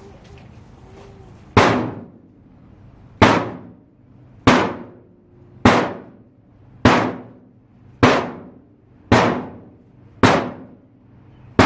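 OTF knife blade punched again and again into a clothes dryer's sheet-metal cabinet: nine sharp metal strikes about a second and a bit apart, each leaving the panel ringing briefly. The blade tip holds up through the stabs.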